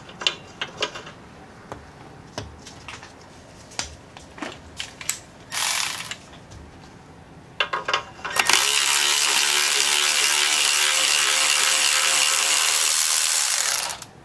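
Ratchet wrench clicking as it backs out a caliper bracket bolt, now turning freely after being heated and broken loose. It starts with scattered single clicks, then about two-thirds of the way through comes a fast, continuous run of clicking lasting about five seconds that stops just before the end.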